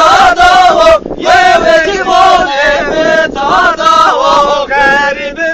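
Men chanting a Zaza-language halay song together, loud and continuous, with a brief break about a second in.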